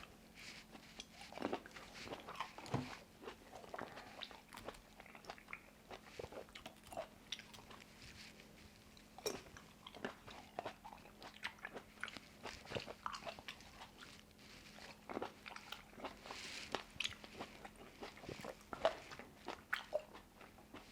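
Close-miked chewing of Shine Muscat grapes: irregular crisp bites and wet mouth clicks as the firm grapes are crunched and chewed.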